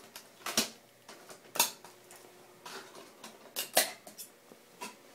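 About five separate sharp plastic clicks and knocks, spread over a few seconds: a recovery disc being handled and the supplemental disc being put into the computer's drive.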